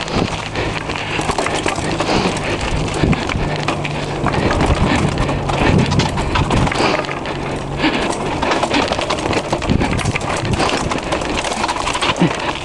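Mountain bike clattering and rattling as it rolls down a rocky stone trail: a constant stream of knocks and rattles, with a steady low hum under the first several seconds.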